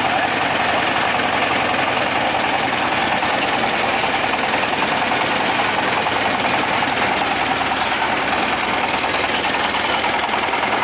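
A small engine running steadily at an even speed, a dense fast-pulsing mechanical drone that does not change.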